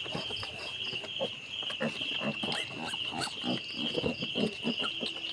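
Newborn piglets grunting and squeaking in many short, scattered calls, over a steady high-pitched pulsing whirr.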